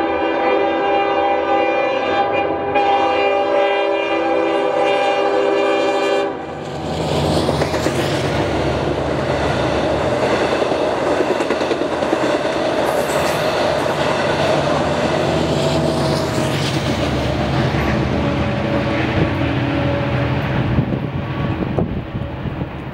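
EMD DM30AC locomotive sounding its five-chime air horn in one long held chord that cuts off about six seconds in. Then the train rushes past with a steady rumble and wheels clicking over the rails, fading away at the end.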